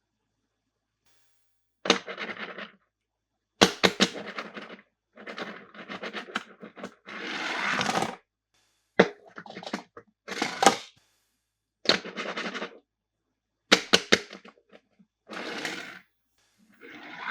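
Plastic toy cars and their packaging being handled: a series of sharp clacks, each followed by a short burst of scraping or rustling, with silence between.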